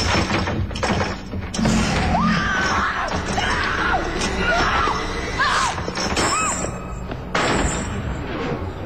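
Horror-film soundtrack: a tense music score with sudden crashes and thuds, and high, wavering pitch glides that rise and fall through the middle.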